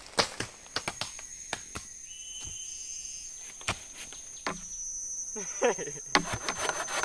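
A steady high-pitched insect drone from crickets or cicadas in the forest, over repeated crunching and snapping footsteps in leaf litter. A short high call sounds briefly at about two seconds, and a brief voice-like sound comes near the end.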